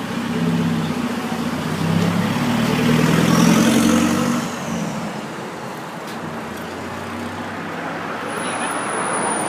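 A motor vehicle's engine running with road noise, growing louder for the first four seconds or so, then easing to a steadier, softer hum.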